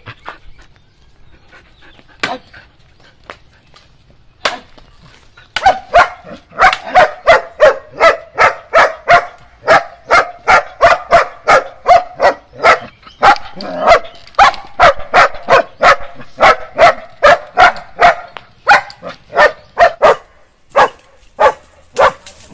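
Young German Shepherd barking protectively. It gives a few single barks, then from about five seconds in barks rapidly and without pause, about three barks a second.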